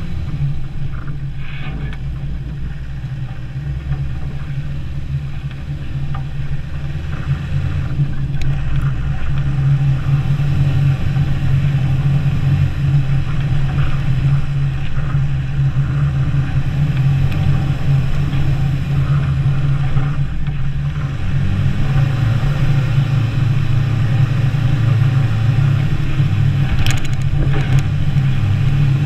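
Off-road vehicle's engine running steadily while driving along a snow-covered trail, getting louder about a third of the way in and again past two-thirds. A brief knock near the end.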